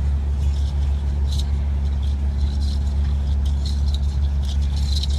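Steady low engine-like hum at an even level, with faint scattered clicks.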